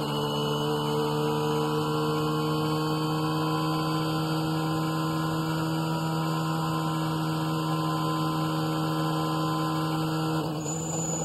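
Honda NSX GT500 race car's V6 engine, heard from inside the cockpit, held flat out at a steady high pitch. Near the end the steady note breaks up as the car comes off full throttle.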